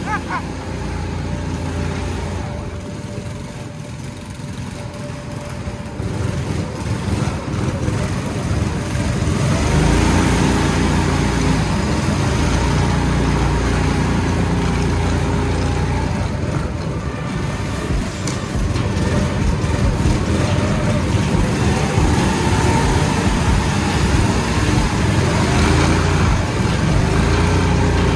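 Drift kart running and sliding on a slick track floor: a steady rushing noise with a wavering hum under it, louder from about ten seconds in.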